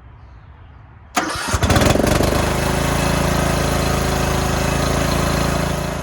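Riding lawn mower engine cranked by the starter, catching within about a second and running steadily, then shut off near the end.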